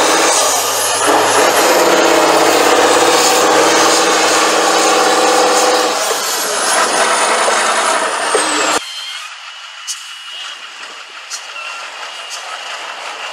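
Tatra 815 6x6 trial truck's diesel engine running hard under load as it climbs through the mud. After about six seconds it eases off and a high whistle falls in pitch. About nine seconds in, the engine sound drops away suddenly to a much quieter, thinner background with a few clicks.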